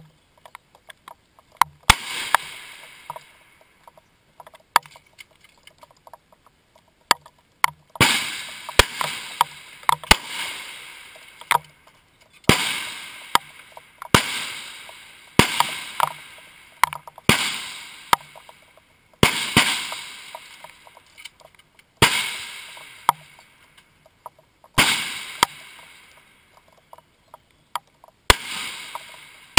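Centerfire rifle shots along the firing line, about ten at uneven intervals, each a sharp crack that trails off over a second or so of echo down the range.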